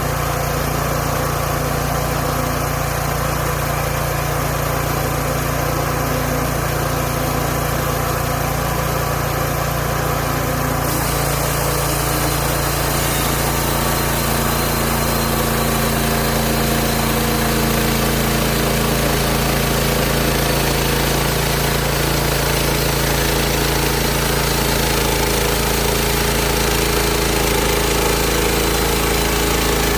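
Small gasoline engine of a portable bandsaw sawmill running steadily. About eleven seconds in, the sound turns brighter, with more hiss on top.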